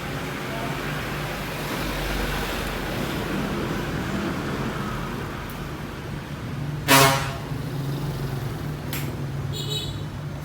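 Road traffic with vehicle engines running steadily, and a short vehicle horn honk about two-thirds of the way through.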